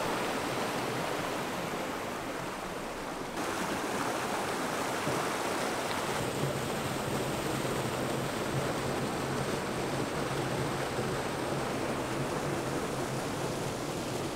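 Mountain river rushing through a gorge: a steady, even roar of flowing water, which changes abruptly about three seconds in. A faint low hum runs under it in the second half.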